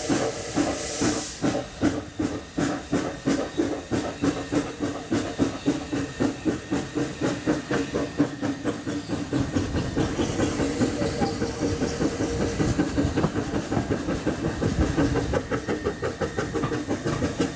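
GWR steam railmotor No. 93 pulling away: a burst of steam hiss in the first second or so, then the engine's exhaust beats in an even rhythm that quickens as the car gathers speed, heard from an open window of the moving carriage.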